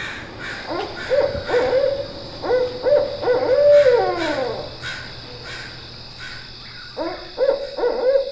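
Barred owl hooting: a run of rhythmic hoots ending in a long falling drawl about four seconds in, then a second run starting near the end.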